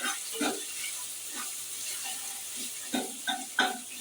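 Ginger paste sizzling as it fries in hot mustard oil in a kadai. A spatula stirs it, scraping and knocking against the pan several times, with the sharpest knocks near the end.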